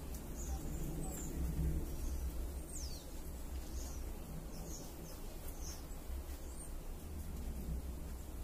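Small birds chirping, with short high calls scattered through, over a steady low rumble of outdoor background noise.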